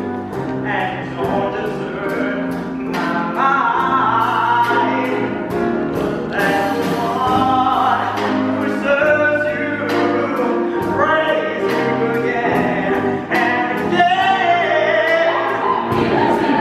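A mixed choir singing in full harmony with a low male solo voice, sustaining long chords.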